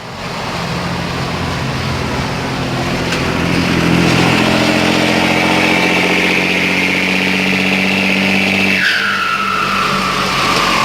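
Mercedes-Benz 1618 diesel truck engine rumbling under power, its note rising over the first few seconds and then holding steady. About nine seconds in, the deep engine note drops away and a high whine slides down in pitch.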